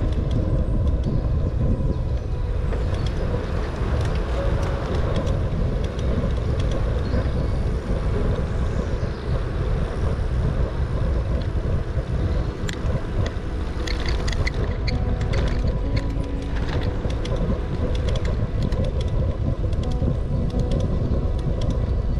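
Wind rumbling on the microphone of a camera riding along on a moving bicycle, with tyres running on an asphalt path; a few sharp high ticks past the middle.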